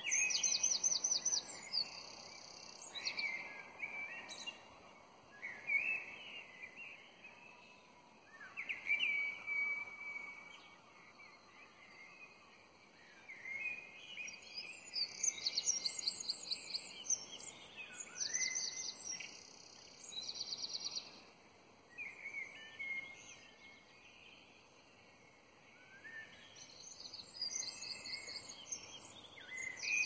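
Dawn chorus of songbirds: several birds singing, with repeated phrases of fast, high, stuttering notes and lower warbled and sliding phrases. A faint steady background noise lies underneath.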